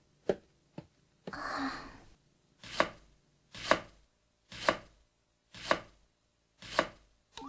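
Kitchen knife chopping on a cutting board: five sharp strokes about a second apart, after a few light clicks and a short noisy stretch in the first two seconds.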